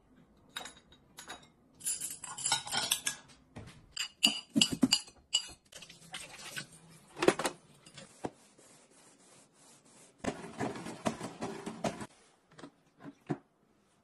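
Ceramic bowls and plates clinking and clattering as they are set down and handled in washing, in many separate knocks. A stretch of water from a kitchen tap runs near the end.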